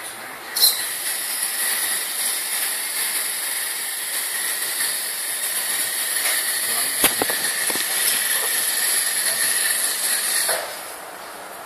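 Small electric drive motor and gearbox of a toy-car robot chassis whining steadily as it drives, starting with a click about half a second in and stopping about ten and a half seconds in, with a few light knocks about seven seconds in.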